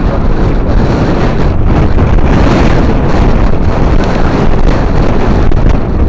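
Wind blowing across the microphone, loud and steady.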